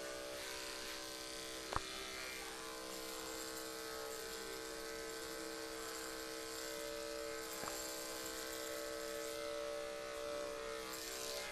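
Corded electric dog-grooming clippers running with a steady buzz as they rough-cut a miniature schnauzer's coat. A single sharp click about two seconds in.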